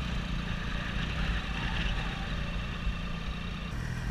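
Triumph Sprint ST 1050's three-cylinder engine running at low revs as the motorcycle rolls slowly away from a standstill, with a slight change in the engine note near the end.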